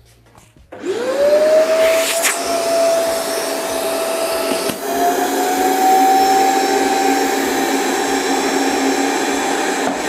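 Electric vacuum cleaner switched on about a second in. Its motor whine rises quickly to speed, then runs steadily, stepping up slightly in pitch about five seconds in. It is sucking air through a hole drilled in a trash bin to draw a bin bag down into it.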